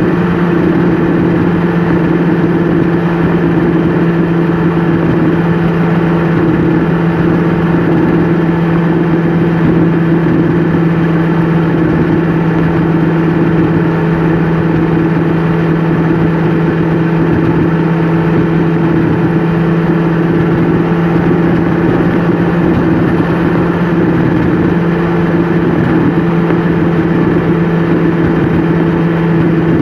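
Vehicle engine and tyre noise heard from inside the cab while cruising on a highway: a loud, steady drone that holds one pitch, with no change in speed.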